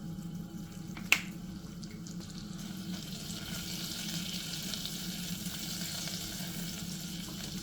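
Chopped garlic and herbs sizzling in hot olive oil and butter in a saucepan, the sizzle growing stronger about three seconds in, with one sharp tap about a second in and a steady low hum underneath.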